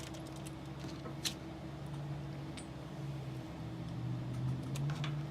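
Steady low hum with a faint click a little over a second in, as small parts are handled while a wheel is refitted to a scale RC crawler.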